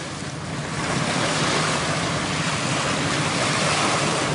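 Small lake waves washing onto a sandy shore: a steady rushing wash that swells a little over the first second.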